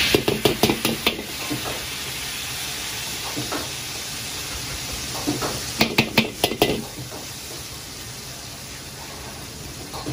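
Hot oil sizzling in a carbon-steel wok as chili bean paste (doubanjiang) is ladled in and fried. Quick runs of metal ladle clacks against the wok come in the first second and again about six seconds in.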